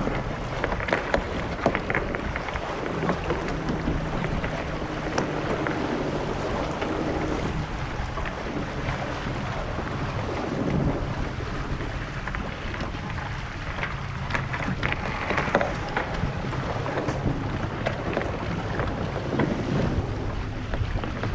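Wind buffeting the microphone and water rushing past the hull of an Impulse 26 sailboat under way, with scattered light clicks.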